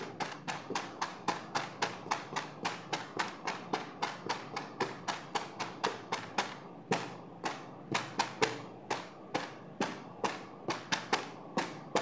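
Fingers tapping on a foil-wrapped gift box and a cardboard doll box, in a steady rhythm of about three to four sharp taps a second.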